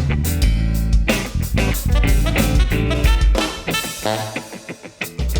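Live band playing an instrumental stretch of a song between sung lines, with drum kit hits and guitar over bass. About four seconds in the band drops back briefly, the bass falling away, then comes back in full just before the end.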